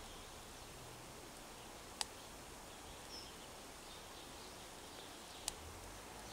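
Two sharp pops from twigs burning in a small stainless steel wood-burning camp stove, about three and a half seconds apart, as the fire catches, over a faint steady outdoor background.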